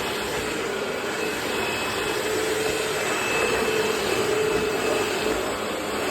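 Eureka Maxima 4700D 12-amp bagless upright vacuum cleaner running steadily, a constant motor hum over rushing air.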